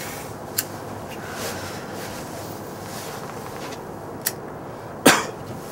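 Cigarette lighter struck once with a sharp click to light a cigarette, over a steady background hiss. Another faint click follows later, then a louder knock near the end.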